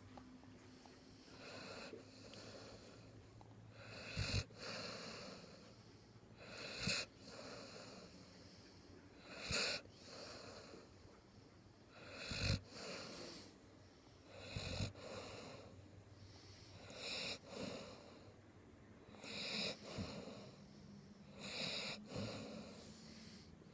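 Dog snoring hard, one rasping snore about every two and a half seconds.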